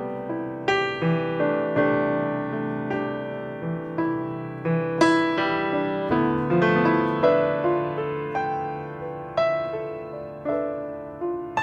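Solo piano music, slow, with single notes and chords struck roughly every half second to a second and left to ring.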